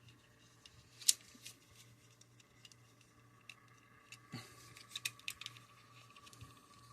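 Plastic action figure and its weapon accessory being handled: a sharp click about a second in, then a run of small clicks and taps about four to five and a half seconds in, over a faint steady hum.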